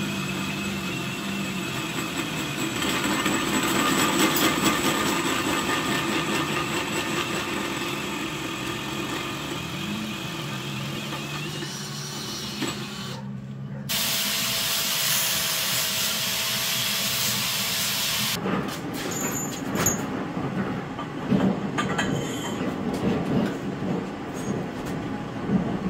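Electric drill spinning a hole saw in a bench tube notcher, a steady grinding hiss with fixed tones as it cuts through steel tube, changing abruptly about halfway through. From about two-thirds of the way in come scattered clanks and knocks of steel tubing being handled on a steel welding table.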